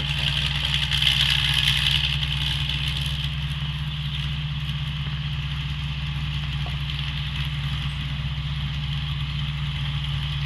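Combine harvester engine running steadily, with a continuous mechanical hiss over the low engine note that swells briefly about a second in.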